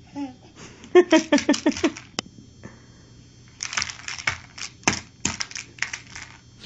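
A young child's voice in a quick run of short pitched bursts, then a string of irregular sharp clicks and rattles from small objects being knocked about in play.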